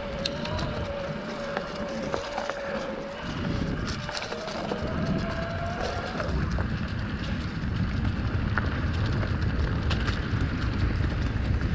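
Electric mountain bike's Shimano mid-drive motor whining steadily under pedal assist, over tyre rumble on a dirt trail and scattered clicks and rattles from the bike. About six seconds in the whine stops and a louder low rumble of wind on the microphone and tyres takes over as the bike picks up speed.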